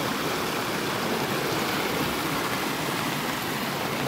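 Steady, even rushing of heavy rain and water, with no separate events standing out.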